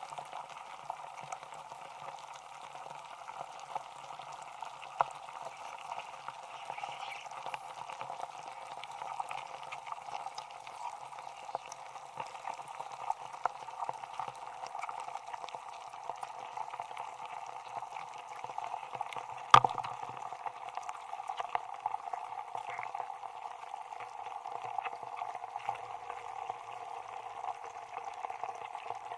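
Steady hiss with scattered crackles, and one sharp crack about twenty seconds in.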